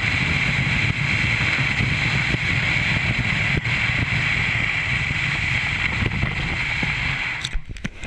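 A sled sliding fast over a snow-covered road, giving a steady rushing scrape with wind on the microphone. About seven and a half seconds in the slide comes to a stop, leaving a few knocks and bumps.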